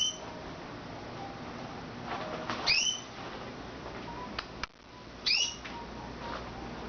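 Canaries giving short, rising chirp calls, one every two to three seconds, rather than full song. A single sharp click comes about four and a half seconds in.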